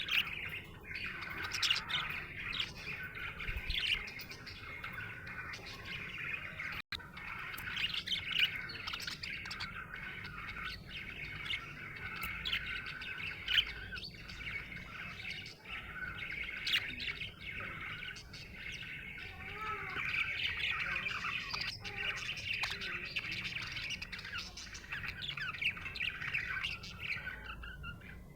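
Budgerigar chirping steadily, a dense run of quick sharp chirps and chatter with the occasional squawk, broken only by a split-second gap about seven seconds in.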